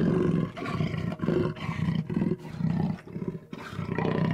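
Koch's hartebeest giving a run of short, deep calls, about two a second.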